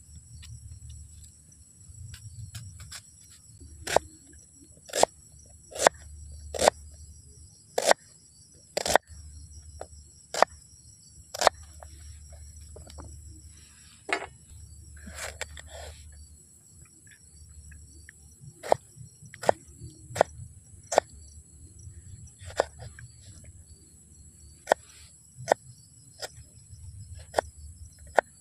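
Kitchen knife cutting an onion and chopping on a wooden cutting board: sharp knocks of the blade on the board at irregular intervals, roughly one a second. Crickets chirp steadily behind.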